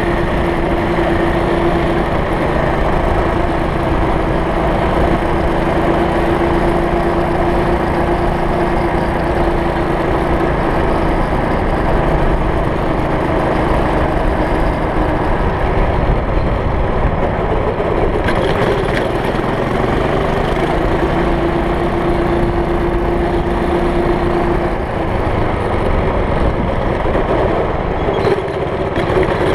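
Small single-cylinder go kart engine running steadily while driving along.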